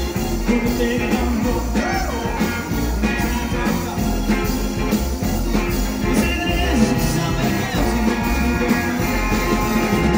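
Live rock and roll band playing: electric guitar, upright bass and drums, with a man singing.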